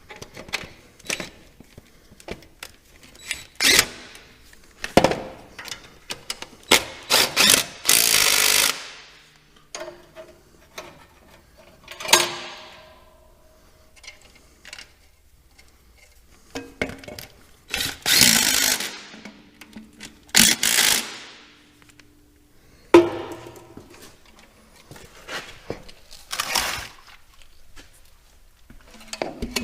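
Hand tools and metal parts clanking, knocking and scraping during tractor reassembly work, with a few sharp metal strikes that ring briefly and several longer rasping scrapes.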